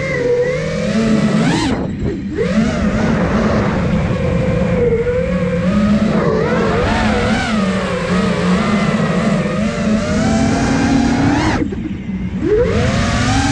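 Brushless motors and propellers of a 5-inch FPV racing quadcopter (iFlight Nazgul Evoque F5) whining through the onboard camera, pitch rising and falling with the throttle. The sound drops away briefly twice, about two seconds in and near the end, where the quad flips upside down.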